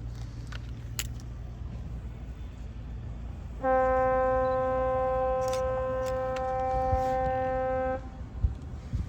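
The general-cargo ship Edenborg's horn sounding one long, steady blast of about four seconds, starting about a third of the way in: a hello salute.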